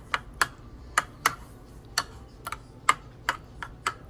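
Spoon tapping against a bowl while stirring a thick yogurt and spice marinade: sharp separate clicks, roughly two a second at an uneven pace.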